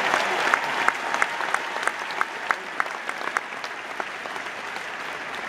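Arena crowd applauding, the applause fading over the first seconds, with a run of sharp hand-percussion strikes, about three a second, that stops a little past halfway.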